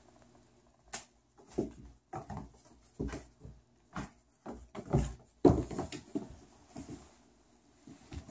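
A golden retriever puppy and a cat scuffling on a tile floor: a run of irregular thumps and scrabbling paws, loudest about five seconds in.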